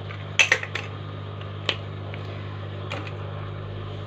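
A few light clicks and taps of a spoon and spice jar against a mixing bowl as ground ginger is spooned in: a quick cluster about half a second in, then single clicks, over a steady low hum.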